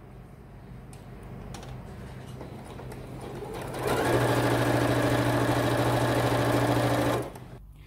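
Electric sewing machine stitching a seam through layered fabric. It runs slowly and softly at first, speeds up to a steady fast run about four seconds in, and stops abruptly near the end.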